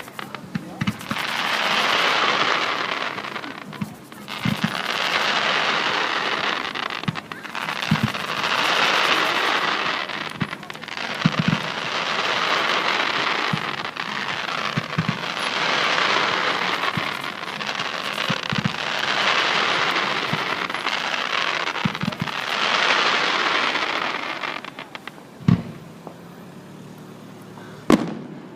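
Fireworks going off: a run of hissing, crackling swells about every three seconds with dull thumps among them, then two sharp bangs near the end.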